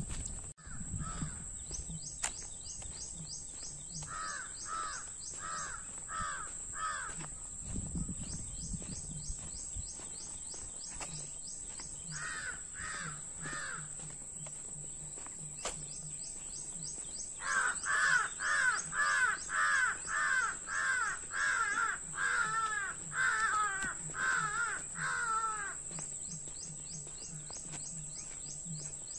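A crow cawing in repeated runs: a short run of about five caws, three more after a pause, then a long, louder run of about fifteen caws past the middle.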